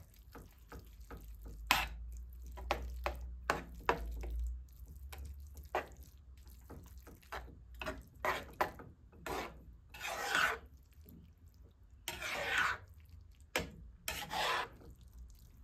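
A utensil stirring and scraping thick sauced ramen noodles around a pan in quick, irregular strokes, with a few longer, louder scrapes near the end.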